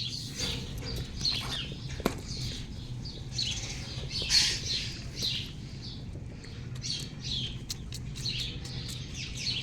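Many small birds chirping at once, a busy overlapping chatter of short high calls, over a low steady hum.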